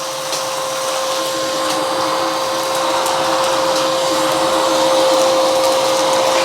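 Wet-and-dry vacuum cleaner running steadily with a constant motor whine while sucking up a handful of sand and soil, grit ticking through the nozzle and hose.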